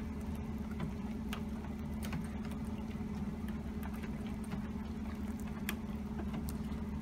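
A steady low hum with scattered light taps of raindrops throughout.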